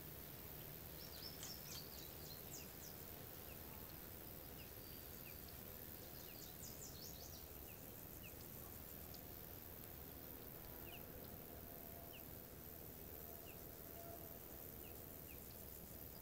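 Faint outdoor background of small birds chirping over a steady low hiss. A quick burst of high twittering comes about a second in and another around six to seven seconds in, with scattered faint single chirps between.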